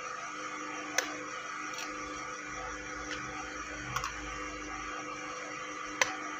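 Tomato and cream masala sizzling in a steel frying pan over a wood fire, a steady hiss. Three sharp taps about a second, four and six seconds in are eggs being cracked on the pan's rim and dropped in whole.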